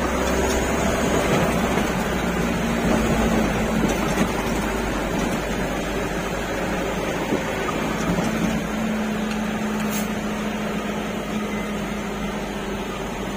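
Truck engine running steadily with road noise, heard inside the cab while driving on a dirt road.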